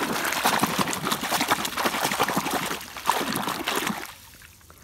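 Water splashing and sloshing as a hand scrubs a toy auto rickshaw under the surface of pond water. The splashing dies down about four seconds in.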